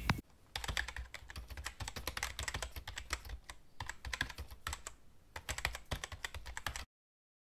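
Typing on a computer keyboard: a quick, irregular run of key clicks with a couple of short pauses, cutting off suddenly near the end.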